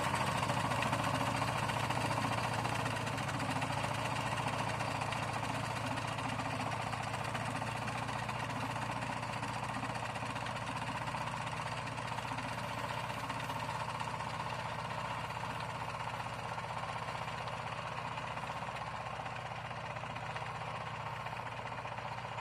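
Shifeng 350L mini tractor's diesel engine running steadily while spraying, slowly fading as the tractor moves away.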